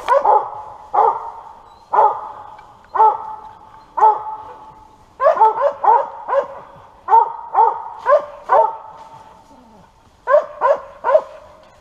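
Squirrel dog barking up a tree at a treed squirrel: short, evenly spaced barks about one a second, bunching into quick runs of two or three in the middle and near the end.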